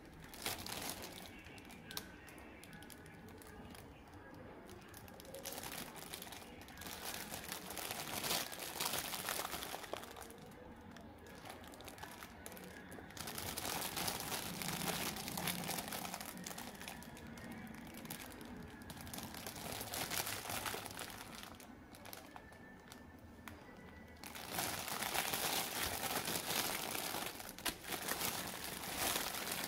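Clear plastic wrapping crinkling and rustling as it is handled and pulled back around a plastic toy police car. It comes in uneven bursts, loudest about halfway through and in the last five seconds.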